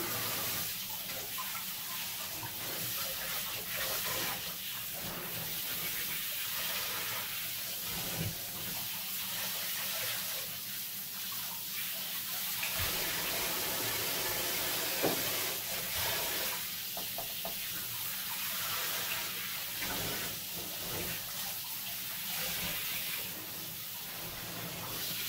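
Water spraying steadily from a handheld shower head as a wet dog is rinsed off in a bathtub, a hissing spray splashing on fur and into the tub water. A couple of faint knocks come through partway in.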